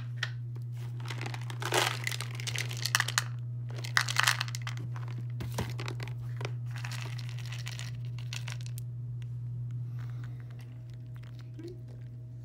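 Crinkly packaging being handled in several short bursts as cat treats are doled out, over a steady low hum.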